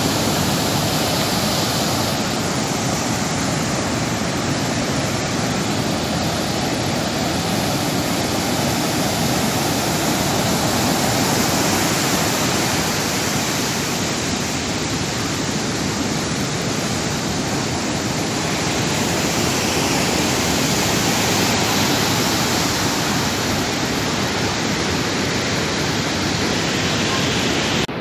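Rough sea surf breaking continuously, heard as a steady, even rushing noise.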